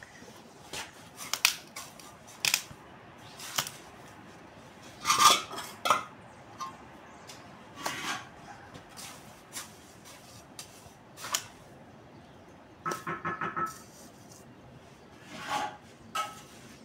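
Hollow clay bricks being handled and set into place on a wall: scattered clinks and knocks of fired clay, some ringing briefly, with a quick run of taps about thirteen seconds in.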